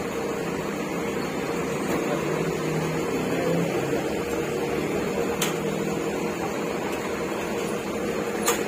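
Steady mechanical hum of a parked Mercedes-Benz coach bus running with its engine idling and air conditioning on, with faint clicks about halfway through and again near the end.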